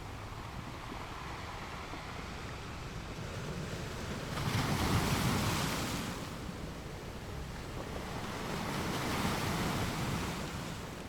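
Sea waves surging in, with two swells of surf about four seconds apart, the first the louder, over a steady wash of water.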